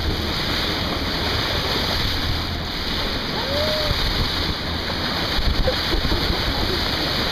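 Sea water rushing and splashing along a moving boat's bow, a steady noise with a low rumble beneath. A short rising-and-falling tone comes a little after halfway.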